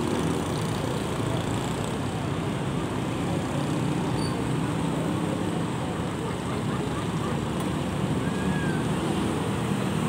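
Steady street traffic noise from motor scooters, motorcycles and cars passing on the road below.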